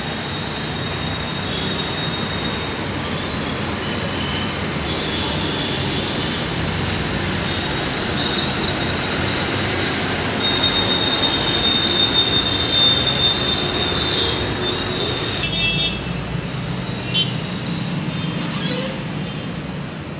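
Steady road traffic noise with thin, high horn toots coming and going. About 16 seconds in the sound turns duller, with a few sharp clicks after it.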